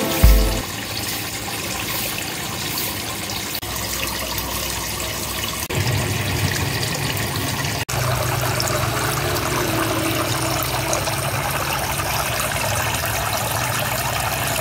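Water from a DIY shower-style aquarium fountain falling and splashing into the tank, a steady trickling hiss with a few brief dropouts and a slightly fuller sound from about eight seconds in.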